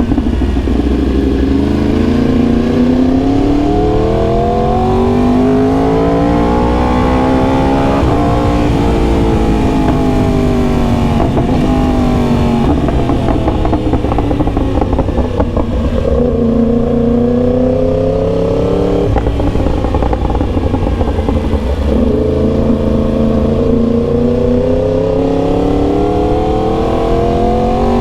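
2021 Yamaha R1M's crossplane inline-four engine running under way, its pitch climbing and falling repeatedly as it accelerates and eases off, with several sudden drops.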